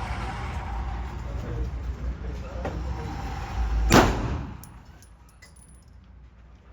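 A single gunshot about four seconds in, sharp and loud with a brief ringing tail, over a steady low rumble that drops away after the shot.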